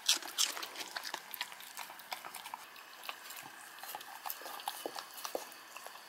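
A dog and a kitten eating from bowls: quick, irregular wet lapping and chewing clicks, with a few louder clicks in the first half-second.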